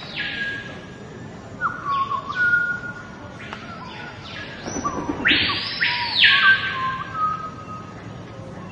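Keel-billed toucan calling: a series of harsh, croaking calls spaced a second or so apart, the loudest and longest about five to six seconds in.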